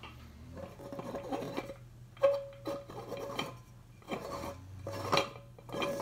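The glass jar of an Arcade Crystal No. 3 coffee grinder being fitted and screwed onto its cast-iron top: grating glass-on-metal scraping, then a series of sharp clinks, several leaving a brief ring, the loudest a little over two seconds in.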